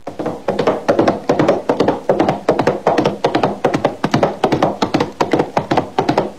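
Horse hooves galloping: rapid, rhythmic thuds in repeated groups.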